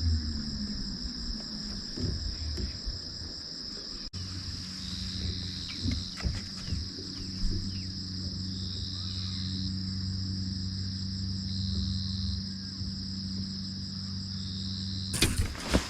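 Insects trilling steadily at a high pitch, with a second trill that starts and stops every second or two. Underneath, a low steady hum comes in about four seconds in, with a few light knocks.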